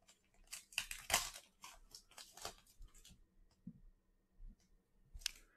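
Foil wrapper of a Select football card pack being torn open and crinkled: a quick run of sharp crackles for about three seconds. Then a few faint clicks and rustles follow as the cards are handled.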